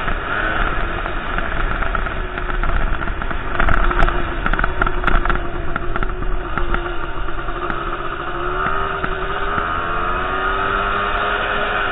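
Motorcycle engine running as the bike rides over a dirt track, heard from a helmet-mounted camera, its pitch drifting with the throttle and rising about eight seconds in. A run of sharp clicks comes about four to five seconds in.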